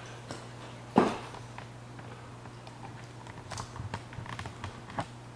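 Camera being picked up and carried by hand: a single loud handling thump about a second in, then light footsteps and small clicks and taps of handling, over a steady low hum.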